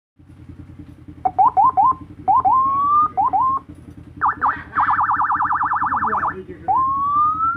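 Electronic siren running through its tones: several short rising yelps, then a fast up-and-down warble, then a long rising wail near the end, over a steady low hum.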